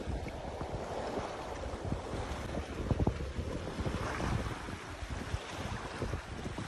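Wind buffeting the microphone in uneven gusts, over small waves lapping in shallow lake water.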